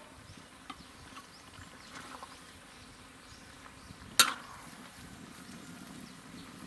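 Faint outdoor background with insects buzzing and a few small ticks, and one sharp clink about four seconds in.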